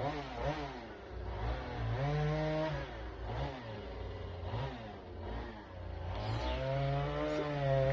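Chainsaw engine revving up and down over and over as wood is cut, then held at a steady high speed near the end.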